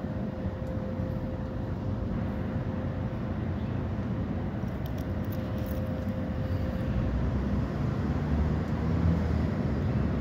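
Steady low rumble of road traffic, with a faint steady hum in the first part, swelling near the end as a vehicle approaches.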